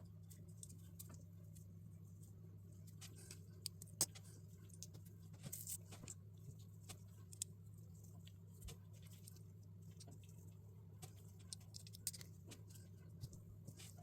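Faint, scattered clicks and light rattles of small plastic LEGO pieces being handled and pressed together, the sharpest about four seconds in, over a low steady hum.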